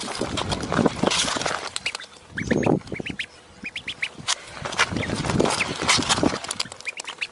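Duckling peeping repeatedly in short, high, rising calls as it runs.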